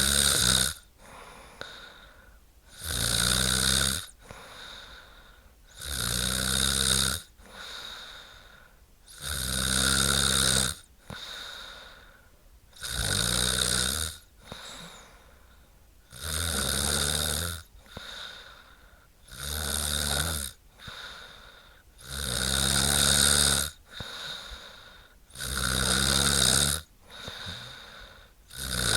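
A woman snoring: a loud snore roughly every three seconds, each lasting about a second, with a softer breath between them.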